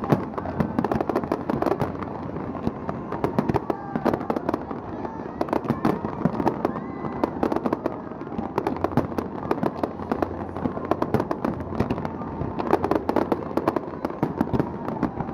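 Fireworks display going off: a dense, irregular run of bangs and crackles with no let-up.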